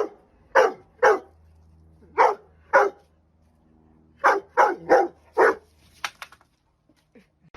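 A dog barking: eight short barks in loose pairs and groups, with pauses between them, followed by a few faint clicks about six seconds in.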